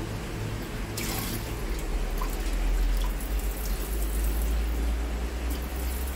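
Handheld bidet sprayer jetting a stream of water into a toilet bowl, splashing steadily.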